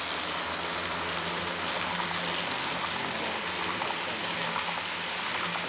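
HO scale model freight train rolling past close by, its wheels on the track making a steady rushing noise with a faint low hum underneath.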